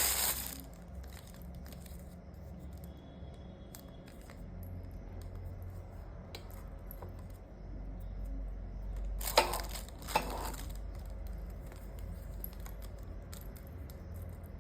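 Watch packaging handled by hand: crinkling that dies away just after the start, then quieter handling with two short sharp crackles about nine and ten seconds in, over a low steady hum.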